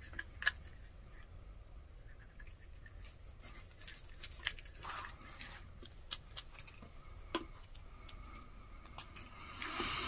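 Hand-sewing a leather sheath: thread drawn through the stitching holes with brief swishes, among scattered light clicks and rustles of the leather being handled.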